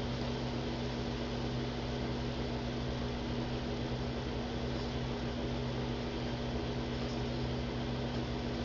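Steady electrical hum with an even hiss, unchanging throughout.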